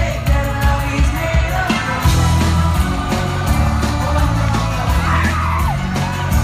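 Live pop band playing with drums and bass and a singing voice over it, and fans screaming along.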